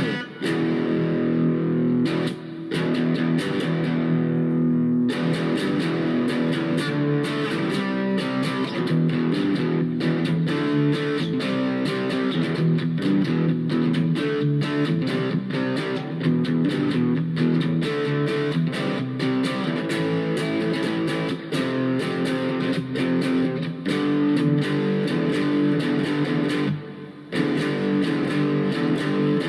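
Electric guitar played through the distortion channel of a Blackstar Superfly battery-powered amp, with the gain at halfway: continuous distorted chords and picked notes, with brief breaks between phrases.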